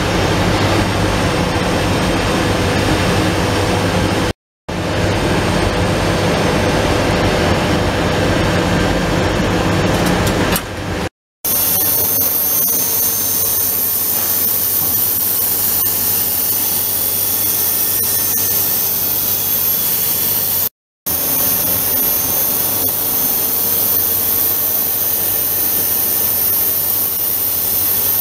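Steady running noise of a Trumpf L2530 4 kW CO2 laser cutting machine: a low hum under a broad hiss. The sound cuts off abruptly three times, and a high hiss is stronger in the later part.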